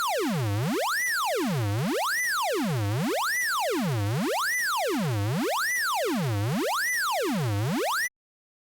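Synthesized tone with overtones, its pitch gliding smoothly up and down between a low hum and a high whistle about once a second. It makes seven even sweeps and then cuts off suddenly near the end.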